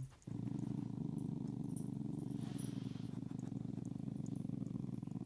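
A dog growling in play: one long, steady, rumbling growl that starts just after the beginning and stops abruptly near the end.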